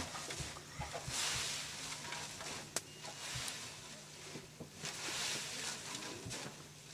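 Coca leaves being stirred and turned by hand in a large metal pot over a fire to toast them, a dry rustling that comes in repeated swishing waves, with one sharp click about three seconds in.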